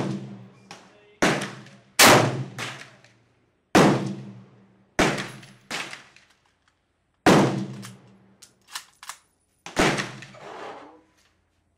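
Rifle gunfire along a range firing line: about eight sharp shots at uneven intervals, some loud and close and some fainter, each trailing off in echo.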